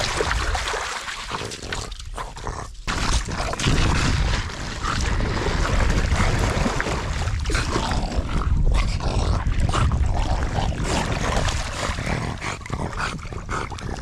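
French bulldog close to the microphone, wading and splashing through shallow river water with a long stick in its mouth, its dog noises mixed into steady, dense water sounds.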